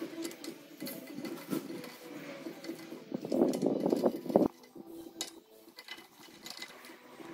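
Small metallic clicks and scrapes as nuts are fitted by hand onto the studs of a wheel spacer on a car's front hub, over a steady workshop hum. A bit over three seconds in there is a louder burst of noise lasting about a second.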